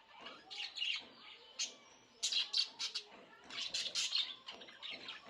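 Budgerigars chirping in rapid runs of short, high calls, with louder clusters about two seconds in and again near four seconds.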